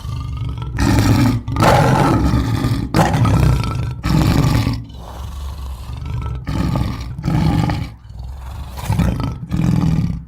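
Gorilla roar sound effect: a string of about ten deep, rough roars with short breaks between them, loudest in the first few, cutting off suddenly at the end.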